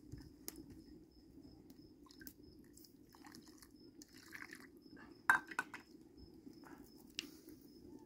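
Light, scattered clinks and knocks of dishes and cooking utensils being handled, with one sharper knock about five seconds in, over a faint steady low hum. A thin, high, repeated chirping runs underneath.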